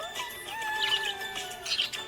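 A song with held melodic notes, and a budgie chirping over it in short bright bursts about a second in and again near the end.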